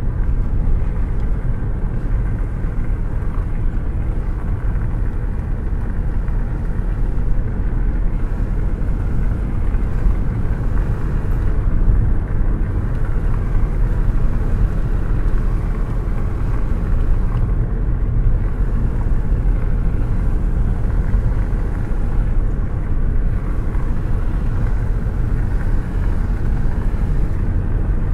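Steady low rumble of a car driving, engine and road noise blended into one even drone with no change in pitch.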